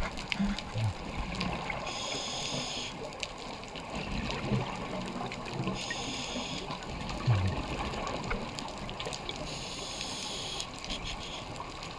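Scuba regulator breathing underwater: three hissing in-breaths, each about a second long and about four seconds apart, over a steady rush of bubbles and water, with low bubbly thumps from the exhaled air between breaths.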